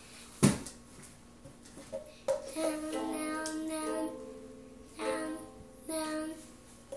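A young girl singing a few held notes while strumming a pink toy ukulele now and then. There is a loud single thump about half a second in.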